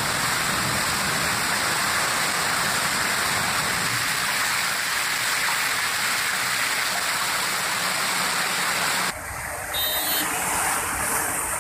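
Heavy rain and rushing storm water, a steady dense hiss. About nine seconds in it cuts to another stretch of rain, slightly quieter, with a brief high-pitched tone.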